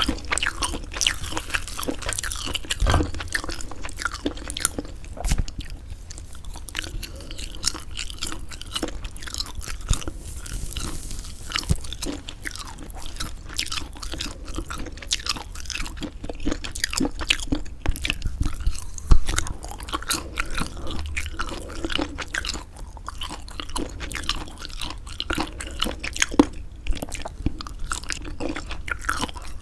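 Close-miked chewing of semi-dried squid: steady, irregular wet chewing and tearing of the chewy, leathery flesh, with many small crackles and snaps.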